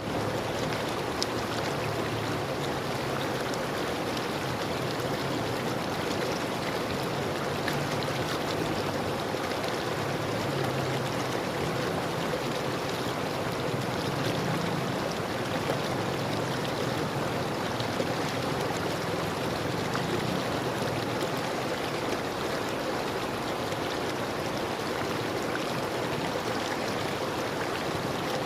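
River water flowing steadily over stones, a continuous rushing with small splashes and trickles.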